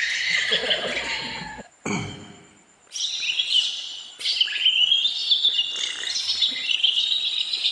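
A person whistling an imitation of bird song: quick warbling chirps and trills. It breaks off for about a second around the two-second mark, then starts again.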